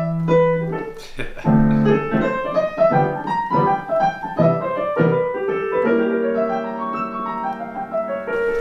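Piano played on a Nord Stage digital stage keyboard: a string of struck chords and melody notes, easing into longer held notes in the last few seconds.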